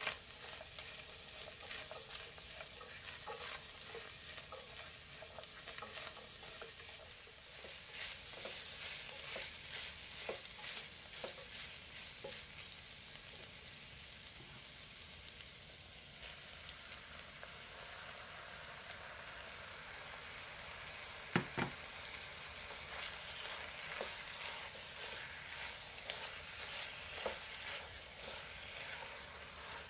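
Ground beef and diced vegetables sizzling in a pot, stirred now and then with a silicone spatula that scrapes and clicks against the pot. One sharp knock about two-thirds of the way through.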